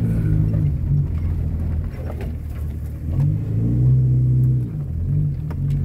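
Four-wheel-drive vehicle's engine under way, its revs rising about three seconds in, holding for a second or so, then dropping back.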